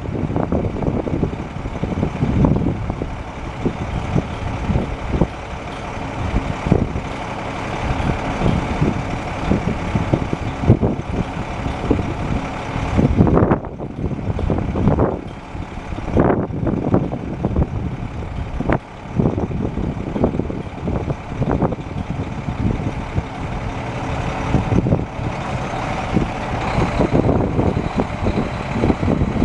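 Caterpillar 3176 inline-six diesel engine of a Peterbilt 357 roll-off truck running, with an uneven, rough-edged rumble and frequent short peaks.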